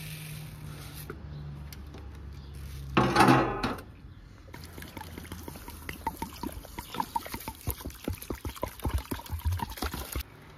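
Liquid poured briefly into a cooking pot, the loudest sound, about three seconds in. It is followed by a long, irregular run of quick bubbling pops and ticks.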